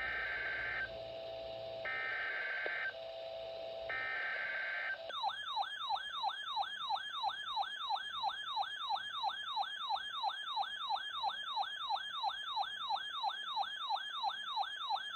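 Emergency Alert System SAME header over NOAA Weather Radio: three bursts of buzzy digital data, each about a second long with a second's gap between them. Then an alert tone that sweeps up and down about three times a second for some ten seconds and cuts off abruptly near the end.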